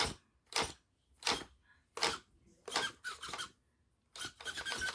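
Holmes Hobbies steering servo on an RC crawler, powered at 6 volts, driving the steering back and forth in six short, quick buzzes, then a longer steady buzz starting about four seconds in. It is noisy, which the owner puts down to it needing oil.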